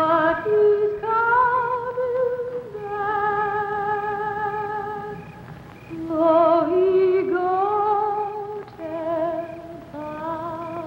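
A woman's voice singing a slow wordless melody in long held notes with vibrato.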